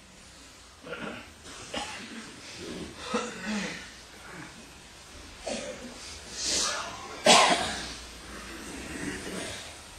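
Scattered coughs and small vocal noises from people gathered in a room, the loudest a sudden sharp cough a little after seven seconds in.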